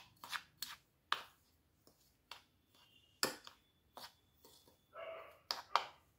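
Metal spoon stirring a dry flour-and-spice mix in a bowl, clinking against the bowl in irregular sharp clicks with soft scraping between.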